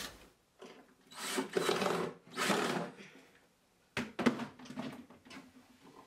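Excess wood filler being scraped off around a screw hole inside a kitchen cupboard: two long scraping strokes, about a second in and again about two and a half seconds in, then a sharp click about four seconds in and a few lighter knocks.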